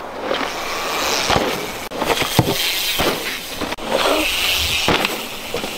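Mountain bikes ridden on a loose dirt trail: tyres rolling and skidding over dirt and pine needles, with a few sharp knocks and abrupt cuts between shots.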